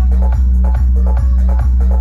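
Electronic dance music with a deep, sustained bass and a steady kick drum about two and a half beats a second, played loud through a DJ sound-box system.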